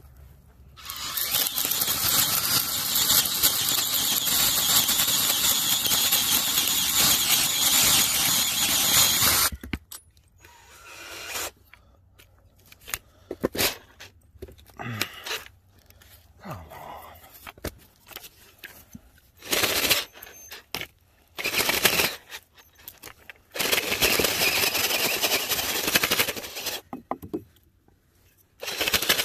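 Cordless drill boring into a log with a spade bit on an extension. It runs in one long stretch of about nine seconds, then in a series of short bursts, the longest near the end lasting about three seconds.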